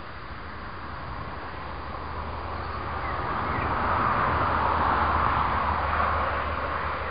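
A vehicle passing by: a steady rushing noise that swells to its loudest about four to six seconds in, then fades away.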